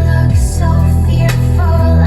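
Electronic music with female vocals played loud through a 2012 Chevrolet Equinox's car sound system, with heavy sustained bass notes and a deep bass note sliding downward about a third of a second in.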